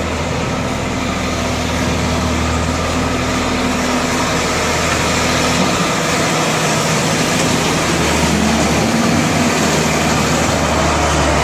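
Engine of the farm machinery used for cleaning out the barn, running steadily and loud with a deep hum.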